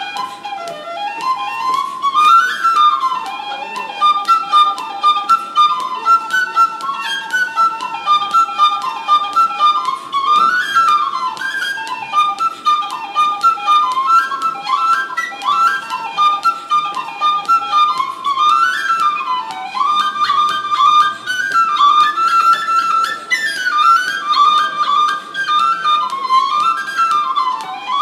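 Tin whistle playing a fast Irish reel: an unbroken stream of quick, ornamented notes.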